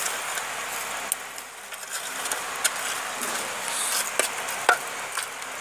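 Skewered meat sizzling over a charcoal grill: a steady hiss with scattered sharp crackles and pops.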